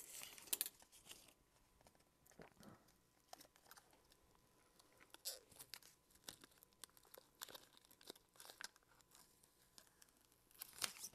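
Protective plastic film being peeled off a replacement touchscreen digitizer: faint crinkling and crackling with scattered small clicks, busier near the start and again near the end.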